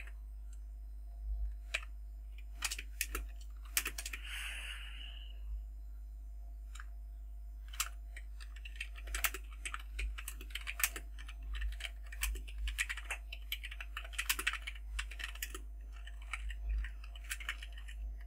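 Typing on a computer keyboard: irregular key clicks, sparse at first and then in quick runs, over a steady low hum. A short hiss comes about four seconds in.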